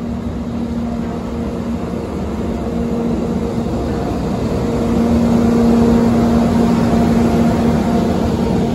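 JR EF64 1000-series electric locomotive rolling slowly past close by, a steady machine hum from its running cooling blowers over wheel-on-rail rumble. The hum swells as the locomotive draws level about five or six seconds in, then eases slightly.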